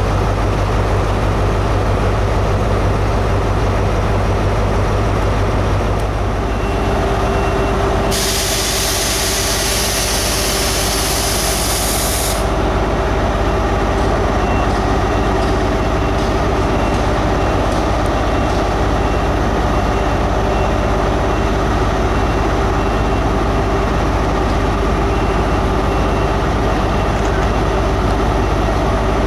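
Diesel train engines (a Class 67 locomotive, then HST power cars) running with a steady low rumble and a steady hum. About eight seconds in, a loud hiss of released air lasts about four seconds.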